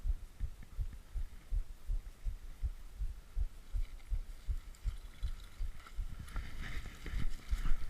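Footfalls jolting a body-worn camera as its wearer walks: an even run of low thuds, about two or three a second. Brush rustling grows near the end.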